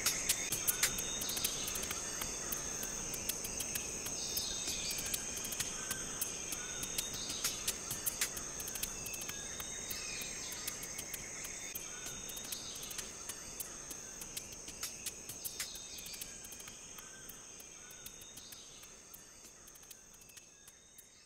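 Steady high-pitched insect chorus, like crickets, with scattered sharp clicks, slowly fading out near the end.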